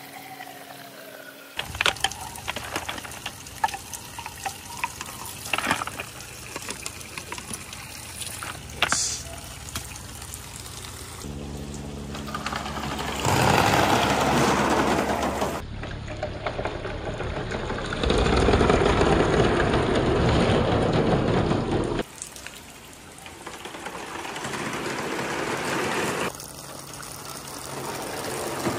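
Marbles rolling down a marble run: scattered clacks of single marbles at first, then a dense rushing clatter of a great many marbles pouring down the track together, starting a little before halfway and staying loud for several seconds.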